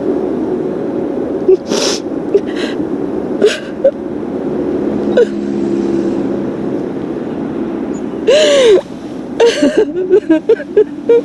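A woman sobbing: sharp gasping breaths, one long wailing sob about eight seconds in, then a quick run of short sobs near the end.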